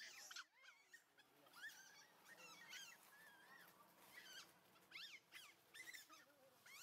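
Faint, high squeaky animal calls, many short chirps that rise and fall in pitch, scattered irregularly throughout.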